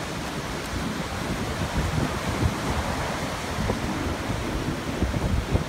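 Ocean surf washing up a sandy beach, a steady rushing noise, with wind buffeting the microphone in irregular low gusts.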